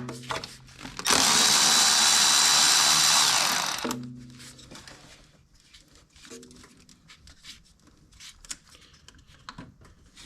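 A cordless power tool runs for about three seconds, spinning out a loose alternator mounting bolt, with a steady whine that winds down at the end. Faint clicks of tool and parts handling follow.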